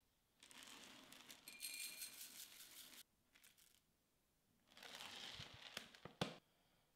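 Dry rolled oats pouring from a plastic container into a glass bowl: one long rustling pour, then a shorter second pour topping up, which ends in a few sharp clicks.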